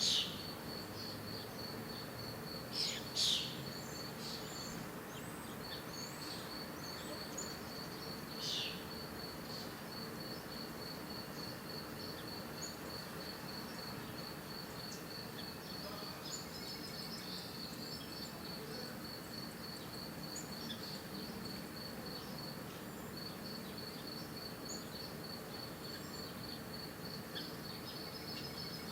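An insect chirps in a steady, evenly pulsed high trill that pauses briefly twice. Birds call over it with short chirps. The loudest are quick falling calls right at the start, around three seconds in and about eight and a half seconds in.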